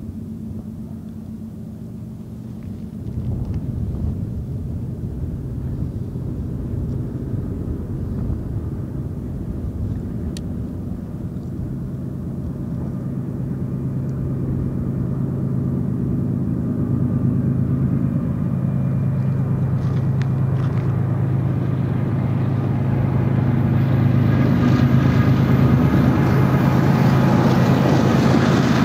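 Diesel engines of GE ES44DC freight locomotives approaching: a steady low engine drone that grows louder as the train nears.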